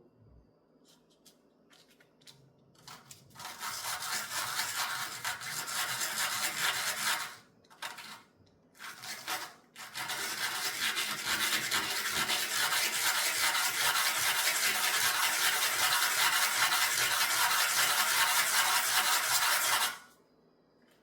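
Fine sandpaper rubbing rapidly over a small jewelry piece, a dry, dense scratching. It starts after a few light scrapes, pauses briefly around the middle with a couple of short strokes, resumes for about ten seconds and stops abruptly near the end.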